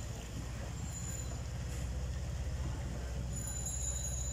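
Steady low rumble over a hiss as a rickshaw moves through knee-deep floodwater in the rain, growing a little louder toward the end.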